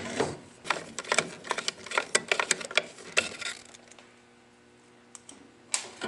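Quick, irregular clicks and taps as the furnace's old spark ignition control module is handled on its sheet-metal mounting plate, then a lull with one last click near the end.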